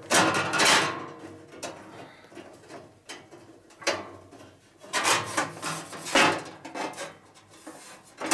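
Steel bandsaw blade being handled on the idle saw of a 1960s Boice-Crane 14-inch bandsaw, scraping and rattling against the saw's wheel and frame in several irregular bursts.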